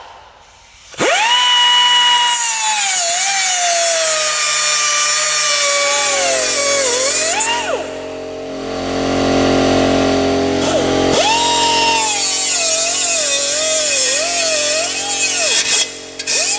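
Pneumatic cut-off tool with a small abrasive wheel cutting down a steel wheel stud. It starts with a high whine that sags and wavers in pitch as the wheel bites into the stud. It stops for a few seconds midway, then spins back up to the high whine and cuts again, stopping briefly just before the end.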